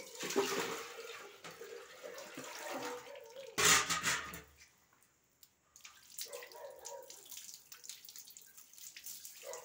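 Water splashing and being poured from a pot over a wet monkey as it is scrubbed by hand, with one louder splash lasting about a second, about three and a half seconds in.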